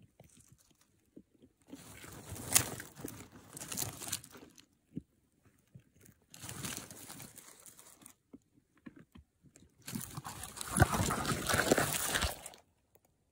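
Short-beaked echidnas shuffling and pushing through dry soil and debris at the nest, their spines scraping against the camera and its microphone. The crunchy rustling comes in three bursts with quiet gaps between them; the last, near the end, is the loudest and ends as the camera is knocked over.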